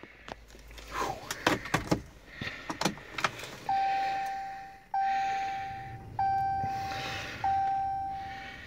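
Inside the cab of a 2015 Ram 1500 EcoDiesel pickup, a few light clicks and key rattles as the ignition is switched on, then the dashboard warning chime sounds four times, each a clear single tone that fades, about a second and a quarter apart, while the glow plugs heat the cold engine before cranking.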